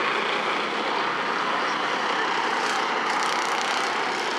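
A pack of Bomber-class stock cars racing on a short oval, many engines running together in one steady, blended noise.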